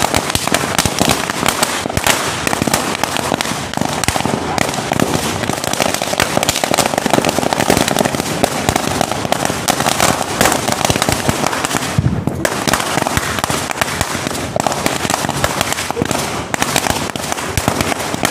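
Firecrackers packed into a burning New Year's effigy going off in a dense, unbroken string of sharp bangs and crackles.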